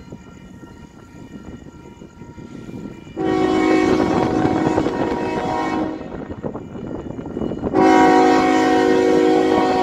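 Union Pacific diesel locomotive's multi-note air horn sounding two long blasts, the first about three seconds in and lasting nearly three seconds, the second starting near the end, over the low rumble of the approaching train. The blasts are the horn warning for a road grade crossing.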